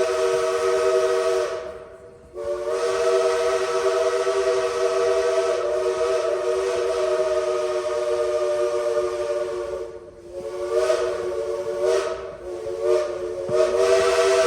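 Princeton three-chime steam whistle of Southern Railway 4501 blowing a steady three-note chord over steam hiss, in long blasts. It breaks off briefly about two seconds in and again about ten seconds in, then stutters with a few quick interruptions near the end before sounding steadily again.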